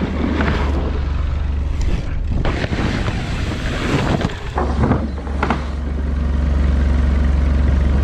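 Wind rushing over an action camera's microphone as a mountain bike rolls fast down a wooden roll-in ramp and across dirt, with a steady low rumble and a few knocks from the bike and tyres.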